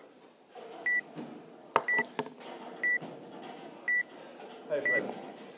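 Electronic countdown timer giving a short high beep once a second, six times, ticking down to the start of a workout. A single sharp knock sounds a little before two seconds in.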